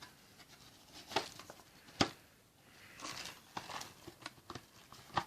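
Plastic clicks and knocks with cloth rustling as the outer cloth dust bag is worked back onto a Hoover Dustette handheld vacuum; a sharp click about two seconds in and another near the end.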